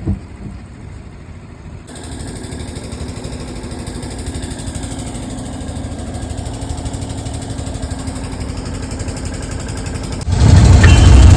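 Tractor engine running steadily, then suddenly much louder near the end.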